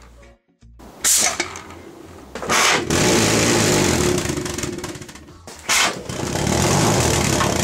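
Jam-jar pulse jet engine burning methylated spirit, running with a rapid rough popping as the flame goes out and reignites several times a second. Three short, louder blasts come about a second, two and a half and six seconds in.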